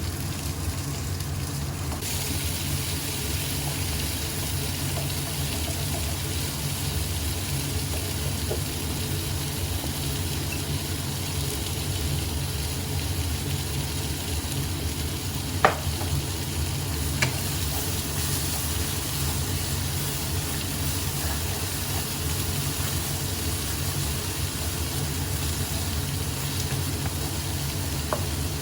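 Food sizzling as it is stir-fried in a pan, an even hiss that picks up about two seconds in, over a steady low hum. Two light taps of a utensil on the pan come about halfway through.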